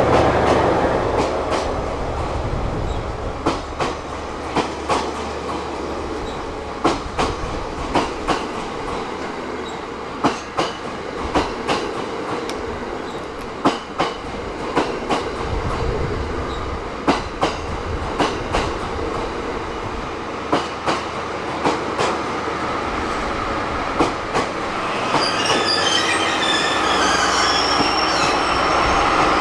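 Train Suite Shiki-shima (JR East E001 series) rolling slowly past: its wheels click sharply and irregularly over rail joints above a steady low rumble. A high wheel squeal sets in near the end.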